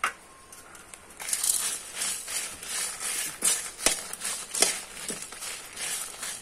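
A metal spoon stirring dry red chillies and whole spice seeds as they roast in a non-stick kadai. It makes repeated dry scraping and rustling strokes, starting about a second in, with a few sharp clicks of the spoon against the pan.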